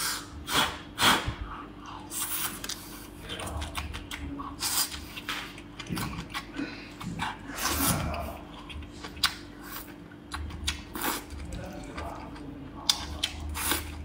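A person slurping up strands of blanched spinach and chewing, with wet mouth sounds coming as irregular short smacks and sucks.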